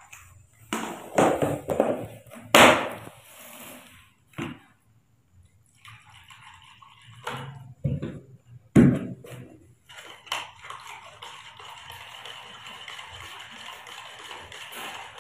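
Plastic containers, a lid and a spoon being handled while infant milk formula is mixed: a series of knocks and clatters, then a steady faint hiss from about ten seconds in.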